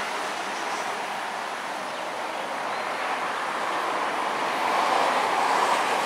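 Steady rushing noise of passing vehicle traffic, swelling louder near the end.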